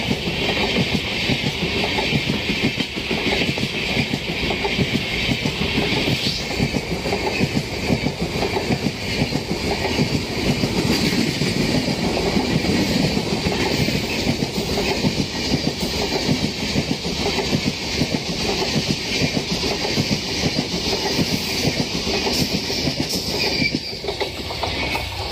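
An Indian passenger train's coaches rolling past, wheels clattering in a quick, continuous rhythm over the rail joints. It eases slightly near the end.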